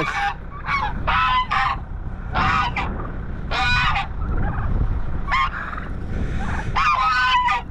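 Domestic geese honking repeatedly, short honks in irregular bursts with brief pauses between them.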